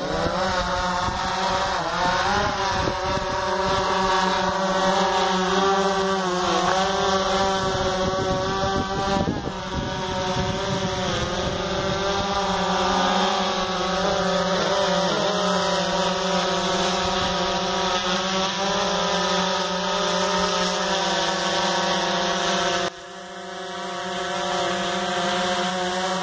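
Quadcopter drone's electric motors and propellers buzzing, rising in pitch as it lifts off, then a steady multi-toned whine whose pitch wavers as it flies. The level drops suddenly near the end and builds back up.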